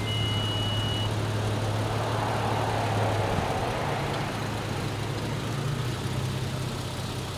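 2007 Toyota FJ Cruiser's 4.0-litre V6 running at low revs as the truck reverses slowly. A single high, steady electronic beep sounds for about the first second.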